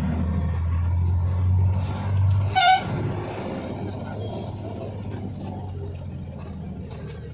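Engine and road noise heard from inside a moving vehicle on a winding hill road. A short, loud horn beep sounds about two and a half seconds in, and the low engine hum eases off around the same moment.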